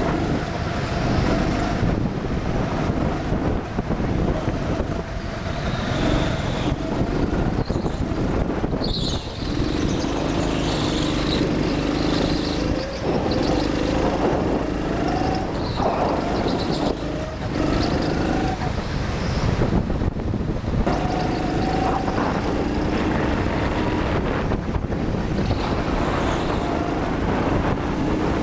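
Go-kart driven hard around an indoor track, heard from on board: a steady motor note that rises and falls a little with speed, over a constant rush of tyre and wind noise.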